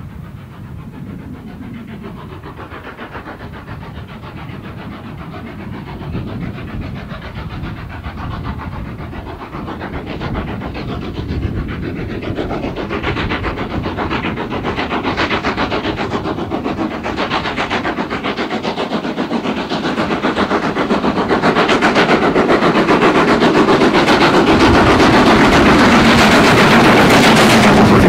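Steam locomotive hauling a train, its exhaust chuffing growing steadily louder as it approaches and loudest near the end as it passes close by.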